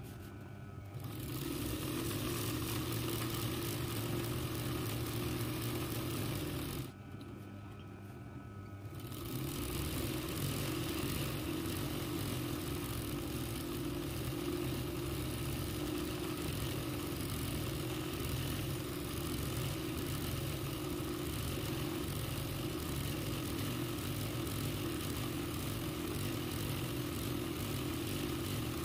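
RANEW 130 zigzag sewing machine running steadily as it stitches free-motion embroidery. It stops briefly about a second in and again for about two seconds around seven seconds in, then runs on.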